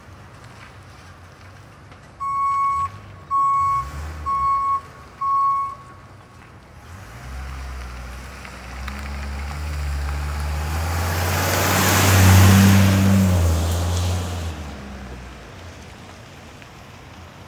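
Ambulance's reversing alarm sounding four steady beeps as it backs up to turn around, followed by its engine and tyres growing louder and fading as it drives past.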